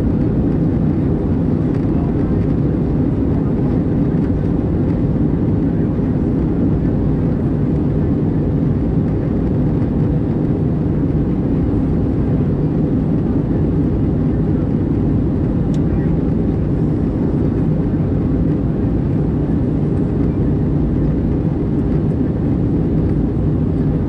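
Airbus A320 cabin noise in flight, heard from a window seat beside the wing: a steady drone of the engines and rushing airflow with a few low hums, unchanging throughout.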